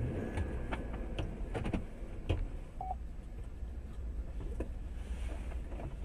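Low, steady road and engine rumble inside a moving car, heard through a dashcam, with scattered light clicks and one short beep about three seconds in. A single sharp knock comes at the very end.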